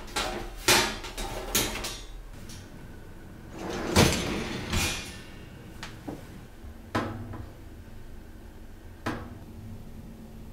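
Wire dishwasher racks rattling and rolling on their rails. There is a cluster of metal clicks at first, a longer louder slide about four seconds in, and then a few separate knocks.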